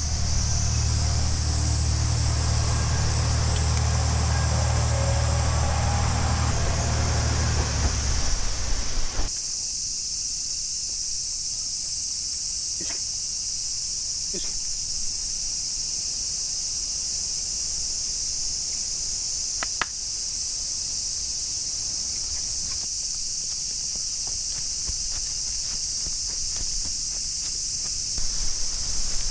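Cicadas droning in a steady, high-pitched summer chorus. A low steady hum underneath stops abruptly about nine seconds in, leaving the cicadas alone with a few faint clicks.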